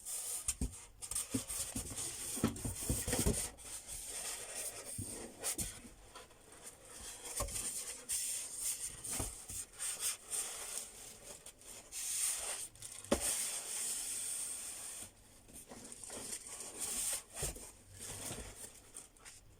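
Hands handling the sewing machine and its parts and packaging: continual rustling and rubbing, broken by scattered clicks and knocks.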